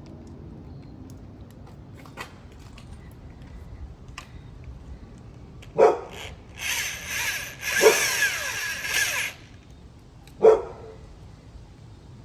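A power drill whirs for about two and a half seconds in the middle, while a dog barks three times, loudest near the end of the drilling and again about a second after it stops.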